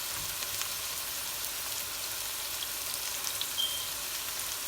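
Oil sizzling steadily in a frying pan as paneer cubes shallow-fry to a light brown.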